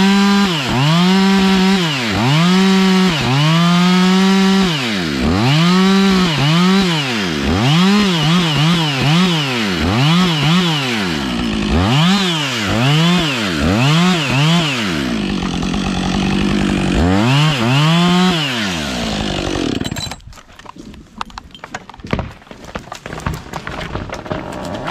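Gas chainsaw cutting into a redwood trunk, its engine speed swinging up and down about once a second as the bar is worked into the back cut. About twenty seconds in the saw's sound drops away, leaving scattered crackles and knocks.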